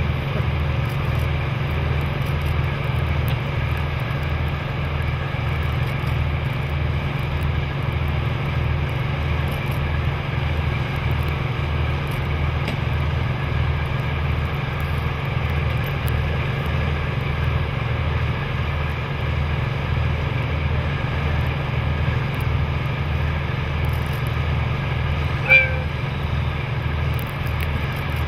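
DD14 rotary snowplow locomotive's diesel engine running steadily with a low, even throb. Near the end there is one short high toot.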